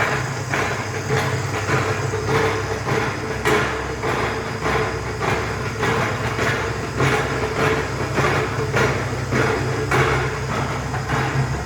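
Vemag Robot vacuum filler running: a steady low hum with a short noisy pulse repeating evenly, a little under twice a second.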